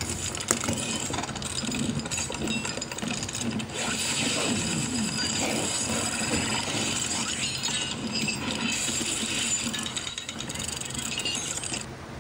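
Plastic Transformers Wheeljack toy being transformed by hand: a run of small clicks and knocks as its joints are turned and panels folded, with a sharp click about half a second in.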